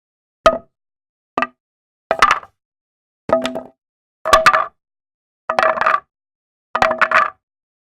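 Metal tools clinking and clattering: two single sharp clinks, then five short rattling clatters about a second apart, all ringing at the same metallic pitches, with dead silence between them.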